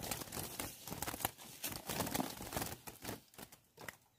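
A small bird flapping and scrabbling against the bars of a trap cage, a dense run of quick wingbeats and rattles that thins out after about three seconds.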